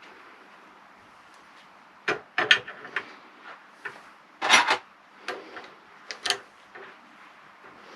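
Metal tools and parts being handled while fitting rivnuts: a string of separate clinks and knocks, with one louder short rattle about halfway through.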